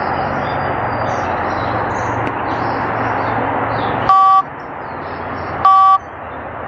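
Two short electronic beeps, each two tones sounded together, about a second and a half apart, over a steady rushing background noise.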